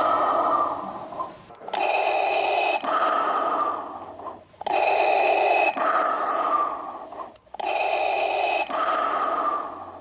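Darth Vader's respirator breathing sound effect played by the electronic Star Wars Black Series Darth Vader helmet. It runs through three slow, even breath cycles about three seconds each, every cycle a brighter inhale followed by a lower exhale.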